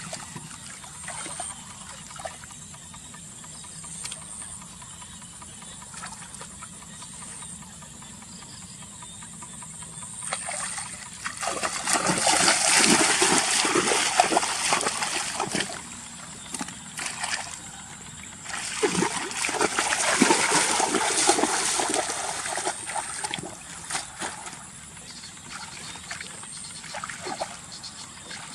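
Water splashing and sloshing in two long loud spells, each lasting about four seconds, separated by a short pause. Between them there are small scattered splashes and drips.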